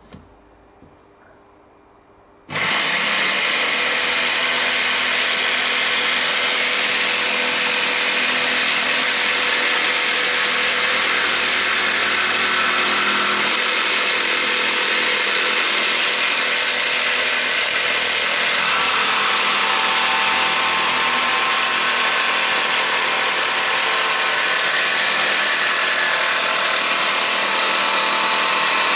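Bosch jigsaw with an acrylic (PMMA) blade, switched on suddenly about two and a half seconds in and then running steadily at speed 5 as it cuts through a clear plastic sheet.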